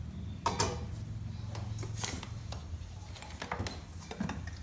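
A few light knocks and clatters as a small electric cooking pot is set down, its glass lid put on and its power cord handled.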